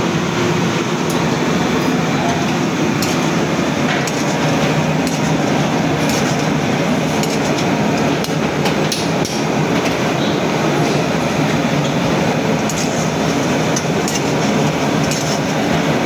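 A metal spatula stirring and scraping through bubbling stew in an iron wok, clinking against the metal now and then. Under it runs the steady rush of gas burners on high flame.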